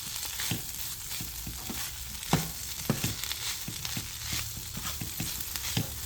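Sliced carrots and shredded chicken sizzling in hot olive oil in a frying pan while being stirred, the utensil clicking and knocking against the pan, with the sharpest knock about two seconds in.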